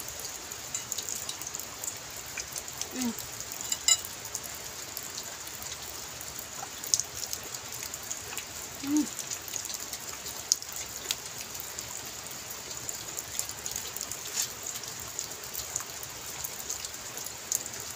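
Steady rain falling, with scattered drops tapping close by throughout. Two short low hums break in, about three and nine seconds in.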